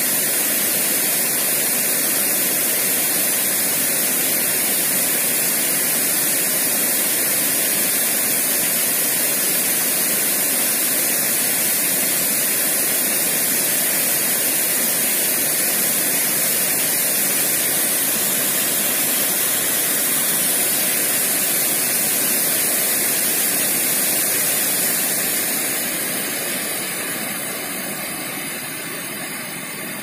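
Steady rushing of river water over rocks, a dense, even hiss, the river running high after rain. It grows a little quieter near the end.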